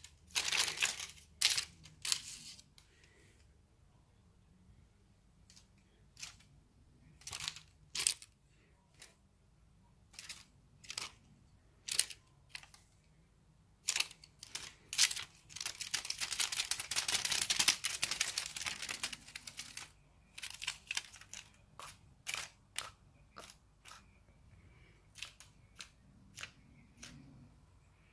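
Crinkly plastic-film wings of a kashakasha cat teaser rustling in quick swishes and crackles as the wand is flicked about, with a few seconds of continuous crinkling a little past halfway.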